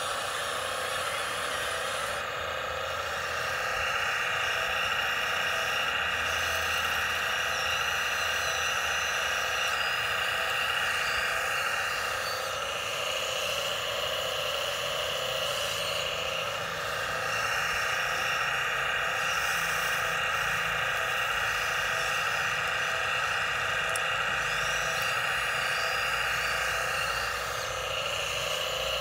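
Radio-controlled Huina excavator's electric motors and gearboxes whirring steadily as it slews and works its boom and bucket. The whir changes pitch a few seconds in, again for several seconds around the middle, and near the end, as different functions are driven.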